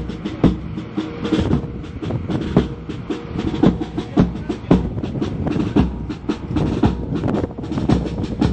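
Marching band playing, with a drum striking a steady beat about twice a second over the band's held notes.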